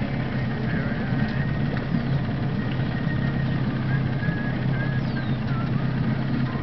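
A motor idling with a steady low hum, with a few faint high whistles over it.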